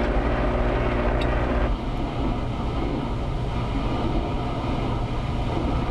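Cuisinart Complete Chef cooking food processor's motor running at its lowest speed with a steady hum, churning a cheese dip. Less than two seconds in, the motor stops as its intermittent stir cycle pauses, leaving a steady, duller background whir.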